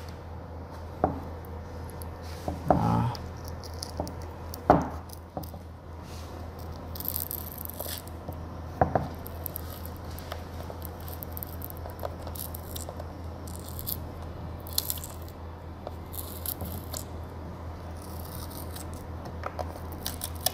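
A plastic pry tool scraping and levering at the glued rubber foot ring on the base of a Harman Kardon Onyx Studio 6 speaker, peeling it away. Scattered sharp clicks and short scraping, tearing noises over a steady low hum.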